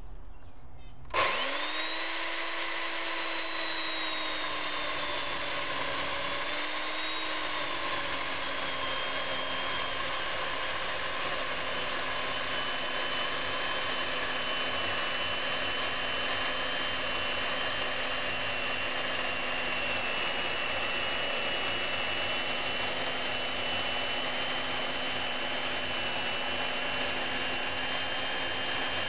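Poulan electric chainsaw with a 14-inch bar starting about a second in and cutting steadily down through a thick square timber beam. Its motor whine rises to speed on start-up, then settles a little lower as the chain takes the load of the cut.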